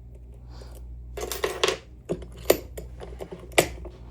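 Small metal parts clinking and rattling as a lock and lockpicking tools are handled: a short rattling run of clicks about a second in, then three sharp single clinks, the last two the loudest.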